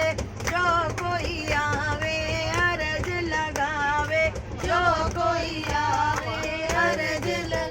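Hindu devotional bhajan music: a melody line with bending, wavering pitch over steady accompaniment and percussion.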